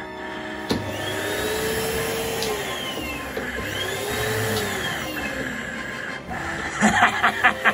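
A Numatic Henry canister vacuum cleaner's motor switches on with a click and runs as a steady whir, with two tones that rise and then fall over it. Near the end, a rhythmic snickering laugh starts up.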